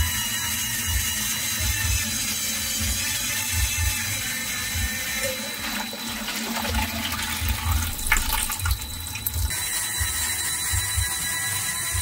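Water pouring and splashing into the clear plastic drum of a Lego Technic washing machine as the filling bottle is tipped over it, a steady rushing splash with irregular low knocks from the mechanism underneath.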